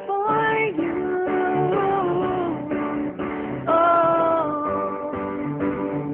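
A woman singing a pop ballad with held, sustained notes over piano and guitar accompaniment.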